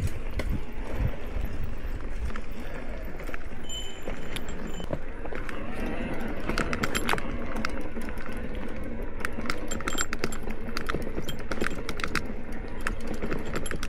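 E-bike rolling over a rough dirt trail: steady wind buffeting and tyre rumble, with bursts of sharp clicks and rattles from the bike jolting over the ground from about six seconds in.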